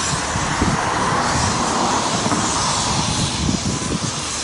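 Steam locomotive getting under way, a steady rushing hiss of steam with an uneven low rumble underneath.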